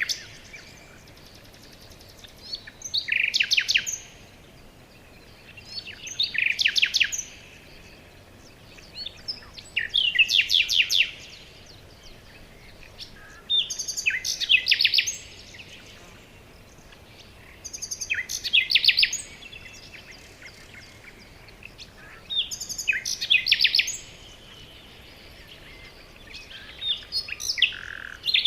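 A songbird singing the same short, fast trilled phrase again and again, about once every four seconds, seven times in all, over a faint steady background hiss.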